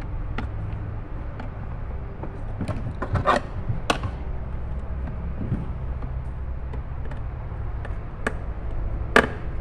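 Scattered clicks and light knocks of the plastic dashboard parts of a children's ride-on toy Jeep being handled and fitted into place, the firmest around three and a half seconds in and near the end, over a steady low hum.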